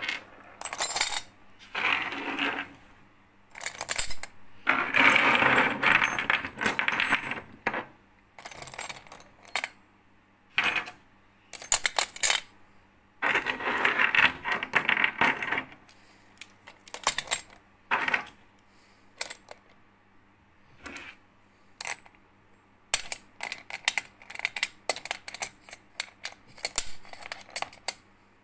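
Brass BBQ gas fittings dropped into a stainless steel bowl, clattering and clinking metal on metal. The first half is longer runs of clatter, like handfuls going in; the second half is many short single clinks.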